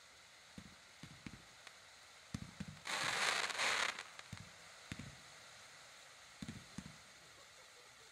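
Ground fireworks going off: scattered dull pops from small firework pieces, and about three seconds in, a loud burst of hissing that lasts about a second.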